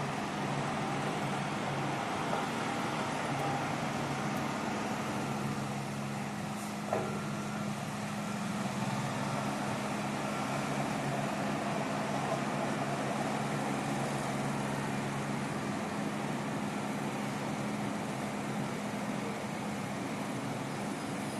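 A heavy engine running steadily at an even pitch, with a single short knock about seven seconds in.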